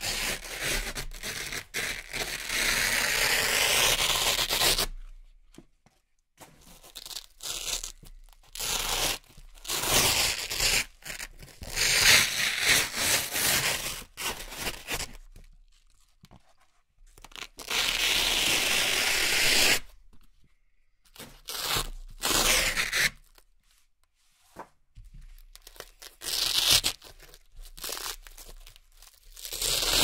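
Velcro hook-and-loop strips being peeled apart by hand: a series of rasping rips, several lasting a few seconds each, with short silent pauses between them and shorter rips near the end.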